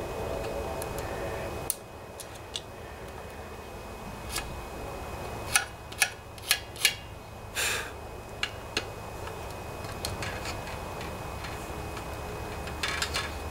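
Metal gasket scraper scraping old gasket material off the aluminium crankcase mating surface of a Briggs & Stratton OHV Intek engine: a run of short, sharp scrapes and clicks about halfway through, one a little longer, with a few more near the end, over a steady low hum.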